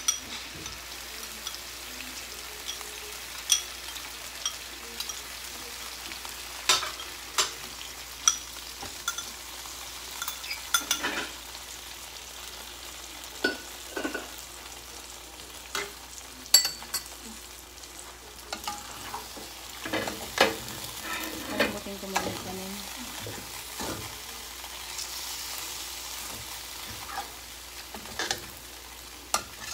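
Sliced beef sizzling in oil and sauce in a wok, with irregular clinks and scrapes of a metal spoon stirring against the pan.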